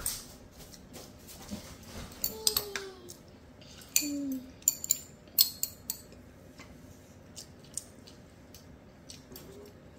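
Spoon clinking and scraping against a soup bowl as a child eats, a series of sharp clicks that is busiest in the first half and sparser toward the end.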